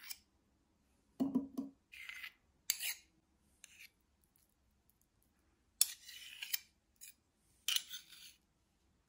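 Metal spoons scraping against each other and clinking on a plastic tub and ceramic bowls as thick gravy is scooped and spread, in about seven short bouts with pauses between.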